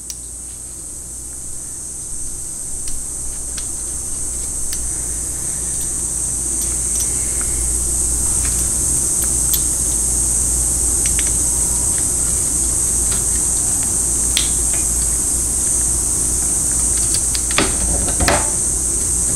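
Steady fan-like hiss and low hum of the shop, growing a little louder over the first several seconds, with scattered light metallic clicks and a couple of louder knocks near the end as small steel valve-body parts are handled.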